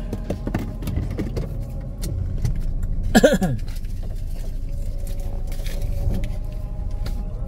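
Steady low rumble of a motor vehicle running, with scattered small clicks and rattles. About three seconds in there is one short, loud sound that falls in pitch.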